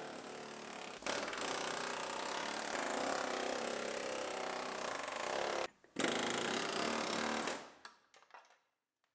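Pneumatic air chisel hammering rapidly as it cuts through the sheet metal of a GMC Yukon's outer quarter panel. It grows louder about a second in, breaks off for a moment, bites again, then stops a little before the end.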